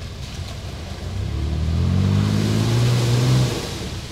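Mitsubishi Pajero's engine revving up under load as it drives into mud. The pitch rises from about a second in, holds loud for a couple of seconds, then drops away near the end.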